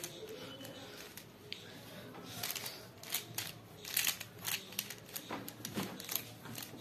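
Plastic 3x3 bubble cube being twisted by hand: irregular faint clicks and rattles of its ball-shaped pieces as the layers turn, quicker and more frequent in the second half.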